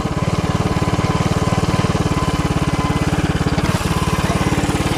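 Tillotson 212cc single-cylinder engine of a mini bike running under way as it is ridden, a fast even beat of exhaust pulses through a home-built header pipe and muffler.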